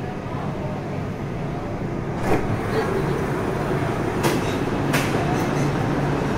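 Foshan Metro Line 3 train car with its passenger doors sliding open, heard from inside over a steady equipment hum. There are three sharp clunks, about 2, 4 and 5 seconds in.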